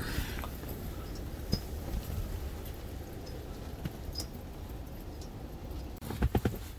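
Wind buffeting a canvas tent from inside: a steady low rumble with scattered rustles and taps of the fabric, then a few sharp knocks near the end.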